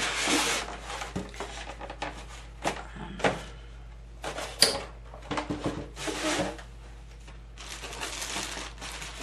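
Hair steamer parts and packaging being handled: rustling, with scattered knocks and clicks and a sharp click about four and a half seconds in.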